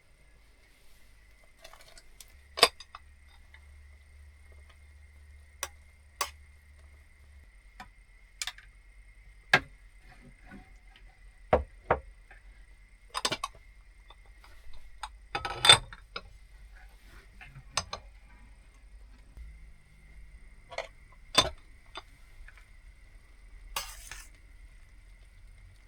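Kitchen utensils clinking and knocking against dishes and pans: about a dozen separate, irregularly spaced clinks, the loudest about two-thirds of the way through.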